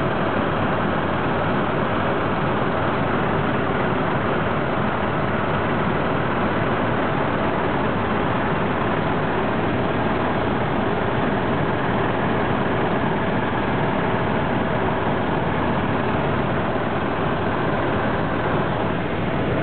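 Helicopter in flight: steady, loud engine and rotor noise heard from inside the cabin.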